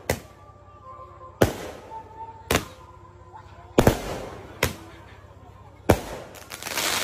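Five-shot handheld roman-candle fireworks firing, their shells bursting overhead with sharp bangs about once a second, six in all. Near the end a crackling hiss swells.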